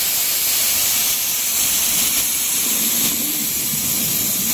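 Gravity-feed air spray gun with a 2.5 mm fluid tip, trigger held open, spraying Raptor underbody coating in a loud, steady hiss.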